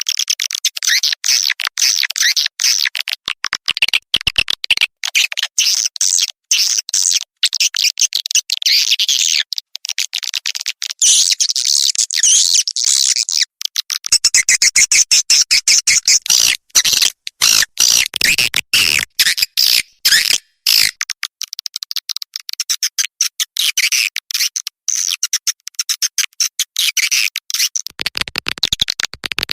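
Swiftlet lure call recording: a loud, dense stream of rapid, high-pitched swiftlet chirps and twitters with brief breaks, the kind of track played to attract edible-nest swiftlets.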